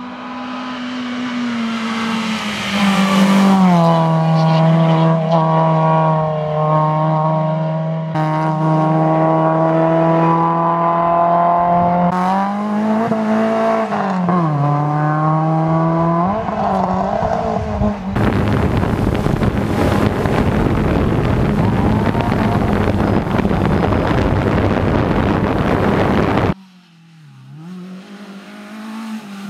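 Renault Clio Sport Group N rally car driven hard on a stage: the engine runs at high revs, its pitch rising and dipping repeatedly with gear changes and lifts. Later comes a long stretch of loud rushing noise that stops abruptly, then the engine is heard again, rising near the end.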